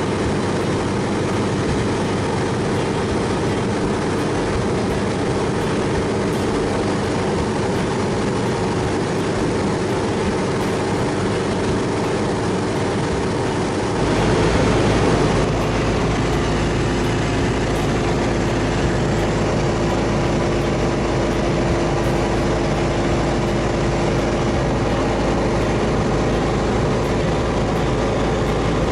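Briggs & Stratton Vanguard 23 hp V-twin engine and propeller of an ultralight running steadily in flight, heard from inside the cockpit as a steady drone. About halfway through, more low rumble comes in.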